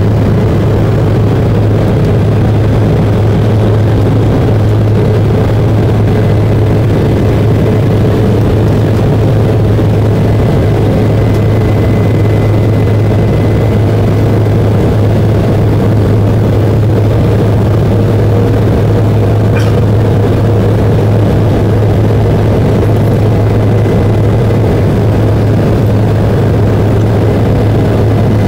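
Cabin noise of an Embraer 170 in the climb after takeoff, heard inside the cabin: a steady drone of its two GE CF34-8E turbofans at climb power with the rush of airflow, and a strong low hum underneath. A single faint click about two-thirds of the way through.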